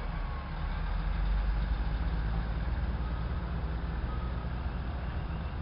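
Diesel railcar engines running with a steady low rumble that swells for a couple of seconds from about a second in, as one railcar pulls away under power.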